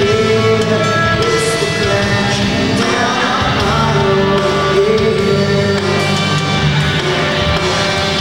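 Live rock band playing: distorted electric guitars, bass and drums, with a male singer's vocals over them.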